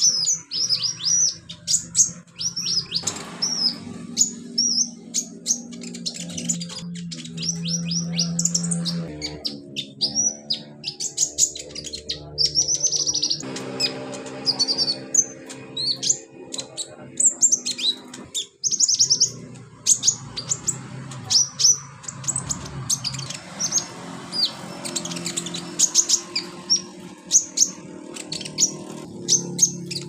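Male crimson sunbird (konin) singing: a rapid, continuous run of sharp, high chirps and short falling notes, with only brief pauses.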